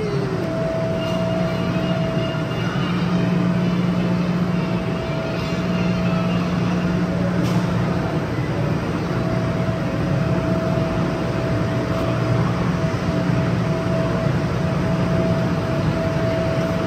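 Steady mechanical drone of the ice hall's cooling and air-handling machinery, a low hum with a thinner higher tone over it that drops out now and then. One short click about seven and a half seconds in.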